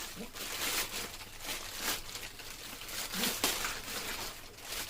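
A plastic bag crinkling and rustling as it is handled and torn open, a rapid irregular crackle.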